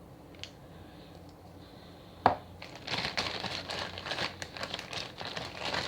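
A can of Play-Doh being opened: a sharp snap about two seconds in, then a run of crinkling as its wrapping is pulled off.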